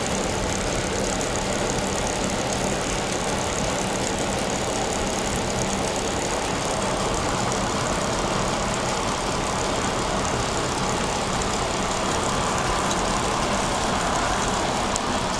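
Van driving at a steady speed, heard from inside the cabin: an even, constant drone of engine and road noise.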